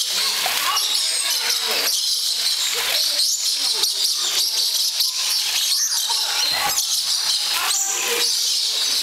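Dusky lories chattering with rapid high squeaks over the steady rush of a small waterfall, with people's voices mixed in.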